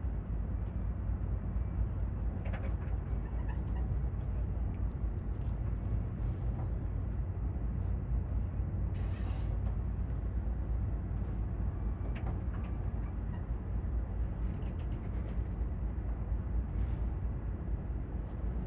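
Steady low rumble with no clear beat or pitch, with a few brief faint higher-pitched sounds about 9, 15 and 17 seconds in.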